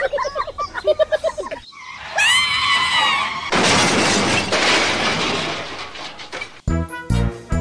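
Cartoon-style dubbed sound effects: a warbling squeal, then a high rising-and-falling cry, then a crash-and-shatter effect that lasts about three seconds. Upbeat music with a steady beat comes in near the end.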